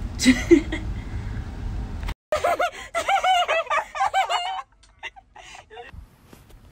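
A person giggling in a high, squeaky voice for about two seconds in the middle, the pitch rising and falling in quick waves. Before it, a low rumble that cuts off suddenly.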